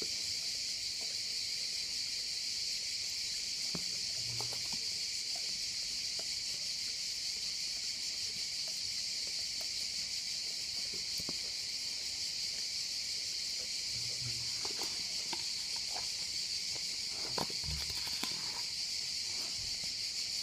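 A steady, high-pitched insect drone, with faint scattered clicks and smacks of a dog licking ice cream off a metal spoon, more of them in the second half.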